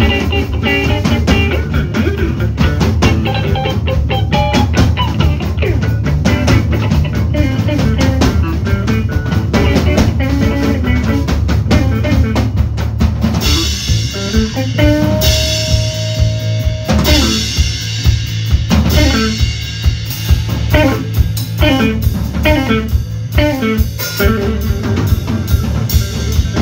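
Live rock-and-roll band playing an instrumental break: electric guitars over a drum kit with a steady beat. About halfway the cymbals get brighter, a guitar holds one long note, and near the end the guitar plays short falling slides.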